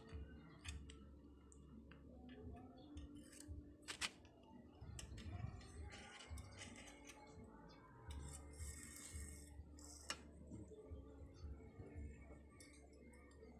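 Mostly quiet, with scattered faint clicks and small metallic ticks of a bicycle brake cable and its fittings being handled and threaded by hand.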